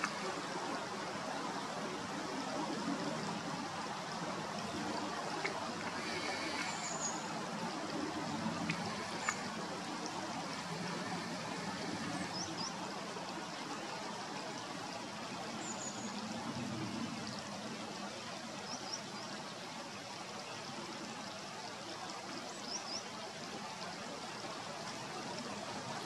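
Shallow stream trickling steadily, with a few short high chirps now and then.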